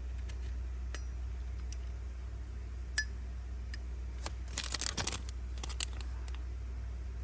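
Zippo lighter being handled: a sharp metallic click with a brief ring about three seconds in, then a quick cluster of clicks and clinks around five seconds in.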